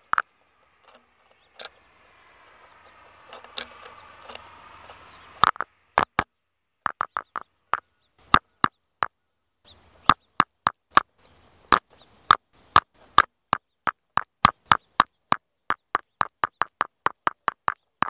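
A bird pecking at a security camera's housing: sharp, hard taps, a few scattered ones a little after five seconds, then a fast run of about three a second through the second half.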